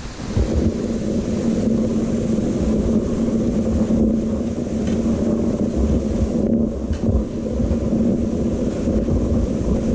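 A steady low mechanical drone with a constant hum, starting suddenly and running evenly, like a large motor.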